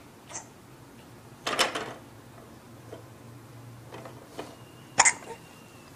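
A four-month-old baby hiccuping: two short, sudden hiccups a few seconds apart, the second the louder.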